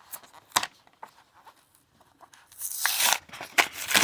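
A pack of Pokémon trading cards being torn open: a sharp click about half a second in, then the wrapper ripping loudly, followed by crinkling.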